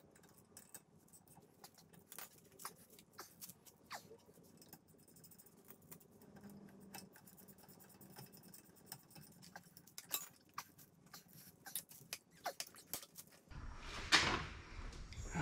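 Light metallic clicks and taps from handling a rear brake caliper and hand tools on a 2013 Audi A4 during reassembly. Near the end, a louder rustling scrape takes over.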